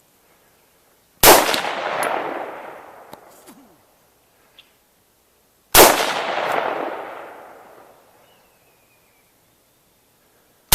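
Three gunshots fired at a hog: two about four and a half seconds apart, and a third at the very end, each a sharp crack followed by a long echo that dies away over about two seconds. The last shot finishes the hog.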